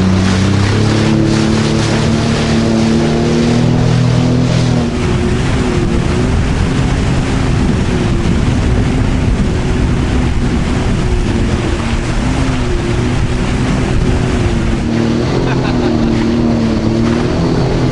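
2020 Sea-Doo Fish Pro 170 jet ski's Rotax three-cylinder engine running at speed, with the rush of spray and water and wind on the microphone. After about five seconds the water noise grows heavier over the engine note.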